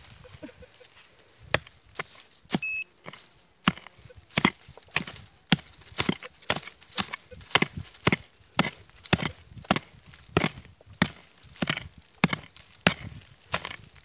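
A small digging pick (kazma) striking forest ground over and over, about two blows a second, digging out a buried metal target. Around the third strike a metal-detector pinpointer gives a short electronic beep.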